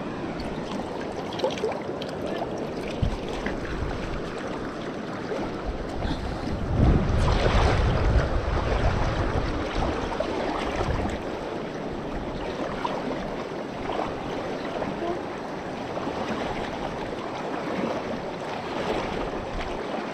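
Shallow, fast mountain stream running over stones, heard close to the water. About seven seconds in, a louder, lower rush swells for a couple of seconds.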